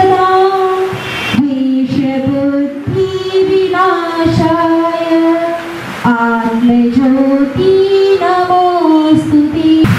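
A woman singing solo into a handheld microphone, a slow melody of long held notes that step up and down, with short breaks between phrases.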